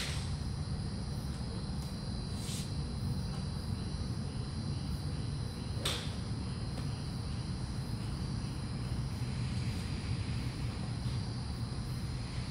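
Steady high insect chirring over a low hum, broken by a few sharp clicks: one at the start, one about two and a half seconds in and a louder one about six seconds in.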